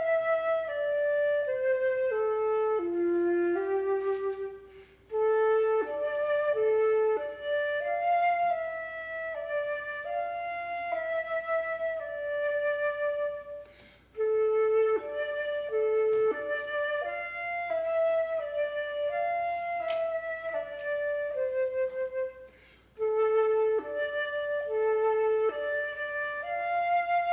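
A flute playing a slow melody, one held note after another, in phrases broken by short pauses about 5, 14 and 23 seconds in.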